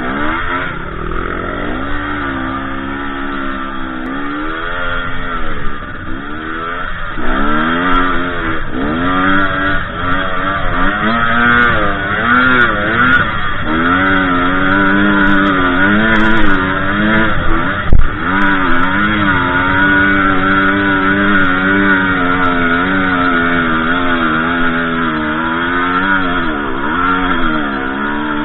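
Dirt bike engine revving up and down over and over as it works under load climbing through deep sand. A single sharp thump about two-thirds of the way through is the loudest moment.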